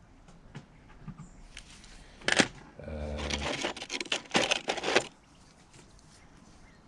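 Small metal finds and marbles clicking and rattling in a plastic tub as a gloved hand sorts through them, with one sharp click about two and a half seconds in. A short low hum comes about three seconds in.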